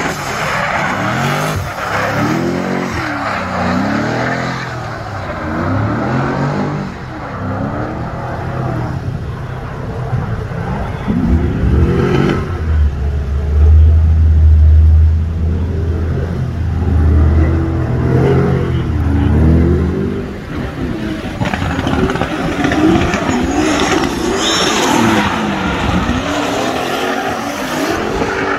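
Drift cars' engines revving up and down over and over as they slide through the course, with tyre squeal under the engine note. It is loudest for several seconds in the middle, with a deep drone.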